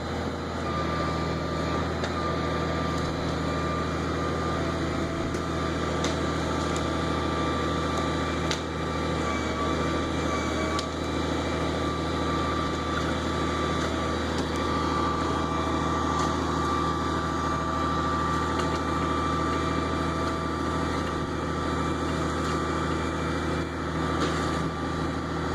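Pulp truck's diesel engine running steadily, with a constant high whine over its low drone.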